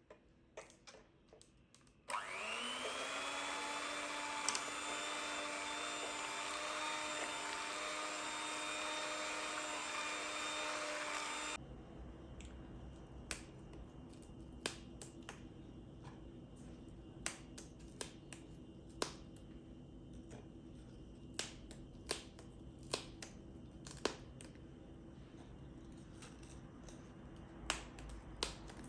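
A small electric motor starts about two seconds in with a brief rising whine, runs at a steady pitch for about nine seconds, then cuts off suddenly. Scattered sharp clicks come before and after it.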